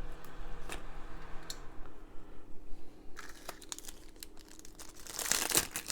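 Small plastic packaging crinkling and rustling, with scattered clicks, loudest near the end. A faint steady hum dies away about two seconds in.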